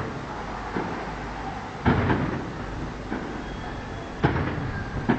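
Aerial firework shells bursting: two loud booms about two seconds apart, with fainter bangs between them and a short rumble after each.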